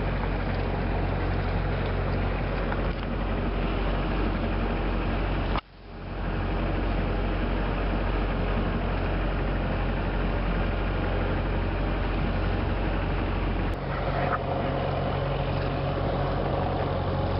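Sailboat's engine running steadily while motoring in light air, with a low hum under rushing wind and water noise. The sound drops out suddenly for a moment about six seconds in.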